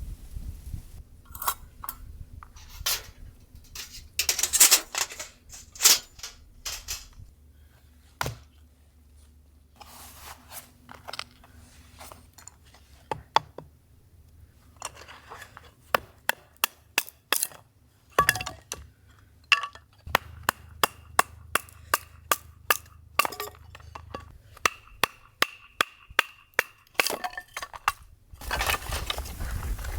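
Cookware and utensils clinking and knocking during camp cooking: scattered sharp taps and clinks, with a quick, even run of taps about halfway through.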